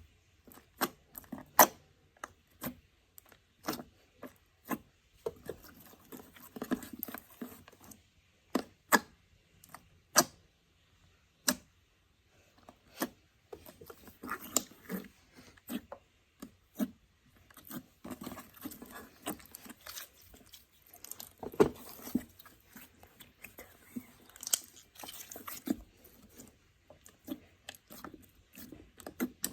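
Slime being squeezed, stretched and poked by hand: irregular sharp wet clicks and pops, with softer squelching in between and a few brief pauses.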